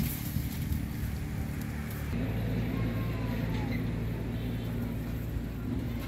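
A steady low motor drone, changing in tone about two seconds in.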